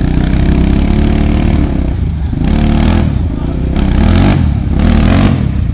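Enduro motorcycle engine being revved again and again, its pitch climbing and dropping back several times.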